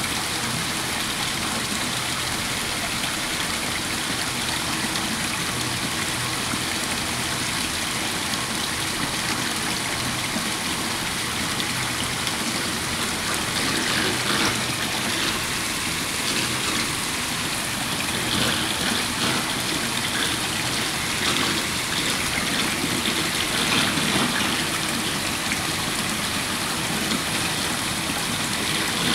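Water pouring steadily from a row of pipe outlets into a trough of water in a model of the Marina Barrage pumps, a constant splashing, a little louder in places.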